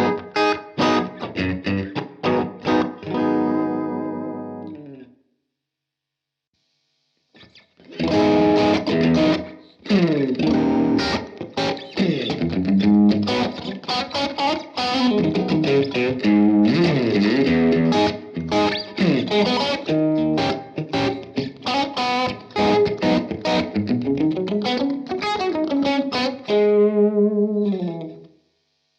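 Electric guitar played through a Strymon Iridium amp modeller. A phrase stops about five seconds in, then after two seconds of silence a longer, busier passage of picked notes follows and ends in a quick run of notes near the end.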